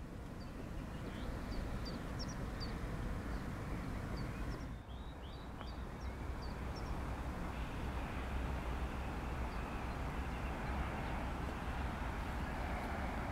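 Small songbirds chirping in short, high notes, most of them in the first half, over a steady outdoor rush of background noise.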